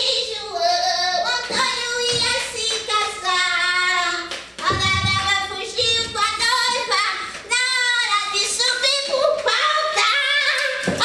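A woman singing in a high, wavering voice with a wide vibrato, phrase after phrase.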